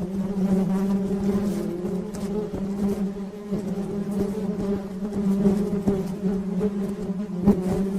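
A flying insect buzzing steadily at a low pitch, with a constant wingbeat hum and small clicks scattered through it.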